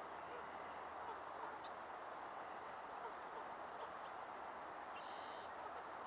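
Steady, faint outdoor background noise, an even hiss, with a few faint high chirps, the clearest about five seconds in.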